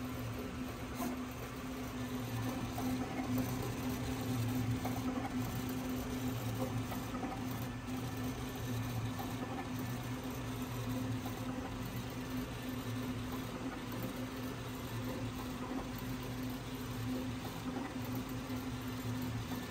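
SAGA A3 Pro decal die-cutting plotter running as its cutting head works across a holographic sticker sheet: a steady low motor hum.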